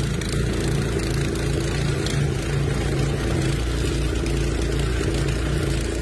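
Gas snowblower engine running steadily as it throws snow: a constant engine hum under a broad rush from the chute.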